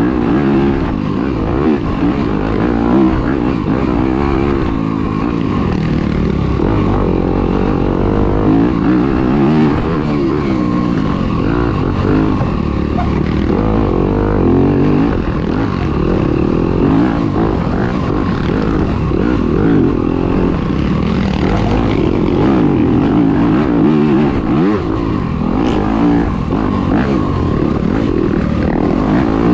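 Dirt bike engine racing through the woods, its pitch rising and falling over and over as the rider works the throttle and shifts. It is heard up close from an onboard camera.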